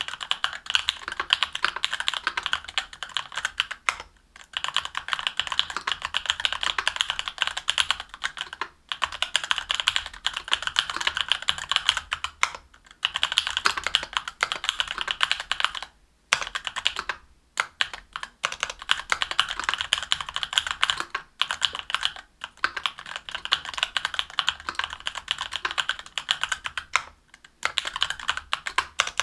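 Fast continuous typing on a mechanical keyboard with stock Durock Korbs 62g linear switches in an aluminium plate and GMK keycaps, a dense stream of keystroke clacks broken by brief pauses every few seconds.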